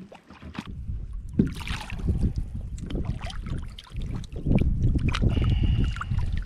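A hooked lake trout splashing at the surface beside a canoe as it is netted, with irregular knocks and sloshes against the boat over a heavy low rumble on the microphone.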